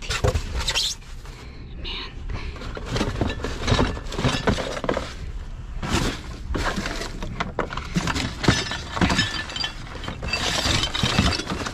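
Trash being rummaged through in a dumpster: cardboard boxes and plastic wrap shifted and dropped, with ceramic cups clinking and clattering, in an irregular run of knocks and crackles.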